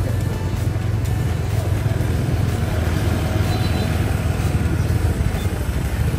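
Steady low rumble of a vehicle running, with no distinct events.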